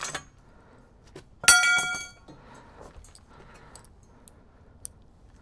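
A length of metal electrical conduit clanks against a hard surface about a second and a half in and rings with a clear metallic tone that dies away within a second, after a short click at the start.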